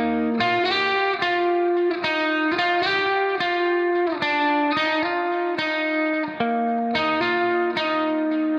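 Background music: a plucked guitar melody, a steady run of notes each struck and fading.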